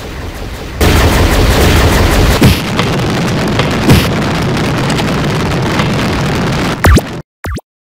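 Cartoon sound effects of an energy-beam blast and explosions. A loud, continuous rushing noise jumps up about a second in, with two heavier booms around two and a half and four seconds in. It cuts off near the end, and a short blip follows.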